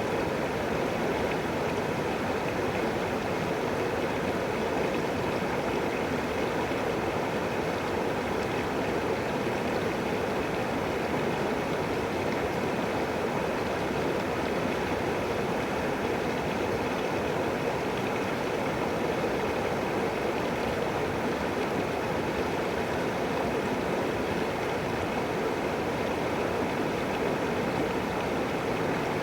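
A river flowing steadily: an even, unbroken rush of water.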